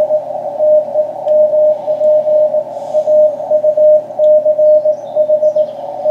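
Morse code (CW) from the other station, heard through an amateur radio transceiver on the 40-metre band: a single tone of about 600 Hz keyed on and off in dots and dashes, over a hiss of band noise.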